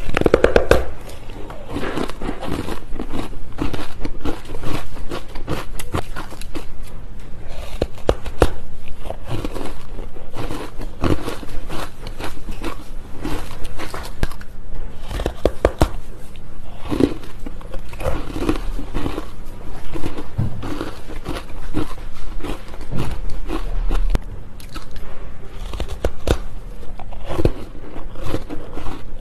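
Close-up biting and chewing of fluffy, squeaky ice: a steady run of crisp crunches and squeaky scrapes as the teeth break it up.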